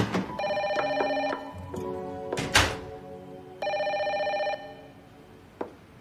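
A telephone rings twice, each ring about a second long with a rapid trill, the rings about three seconds apart. A thump falls between them, about two and a half seconds in.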